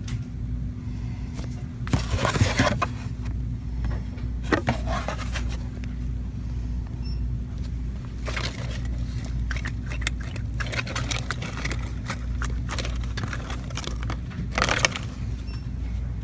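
Steady low hum of a store's background ventilation, broken by short bursts of scraping and rustling as things are handled close to the microphone, the loudest about 2 seconds in and near the end.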